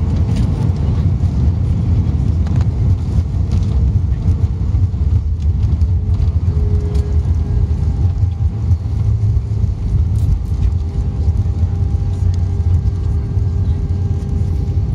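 Loud, steady low rumble inside the cabin of an Airbus A320 rolling out on the runway just after touchdown, with the ground spoilers raised. A steady engine tone runs through the rumble.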